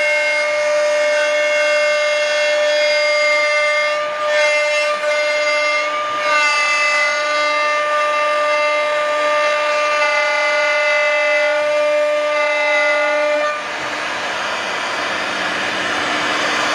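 CNC router spindle whining steadily at high speed while its end mill cuts a board, with the pitch dipping briefly twice under load. Near the end the whine gives way to a rougher cutting hiss for a few seconds.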